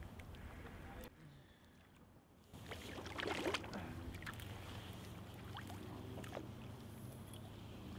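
Water splashing and dripping as a landing net is swept through the trout pond to land a hooked trout, loudest about three seconds in, followed by a few scattered drips. A faint low wind rumble runs underneath.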